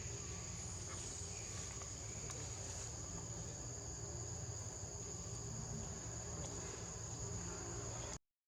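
Insects droning steadily in one high-pitched tone over a low background rumble; the sound cuts off suddenly near the end.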